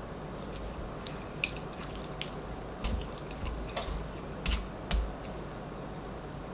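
A series of light clicks and taps from kitchen handling over a steady low hiss; the loudest come in the second half.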